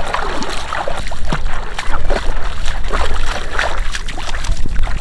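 Legs wading through shallow seawater, splashing and sloshing irregularly with each step, over a steady low rumble of wind on the microphone.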